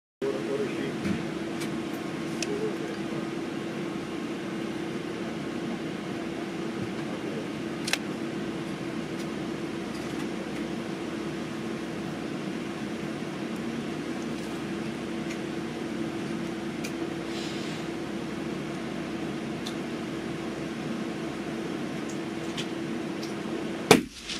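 A steady mechanical hum with one constant low tone, with a few faint clicks, a sharper tick about 8 seconds in, and one loud sharp crack near the end.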